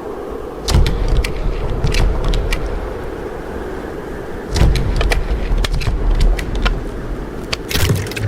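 Blizzard wind ambience: low rumbling gusts that surge about a second in and again around halfway, over a steady hum, with scattered sharp ticks and clicks.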